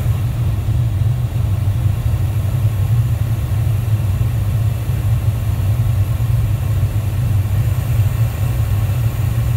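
Steady low rumble of cockpit noise inside a Dassault Falcon 7X business jet on final approach.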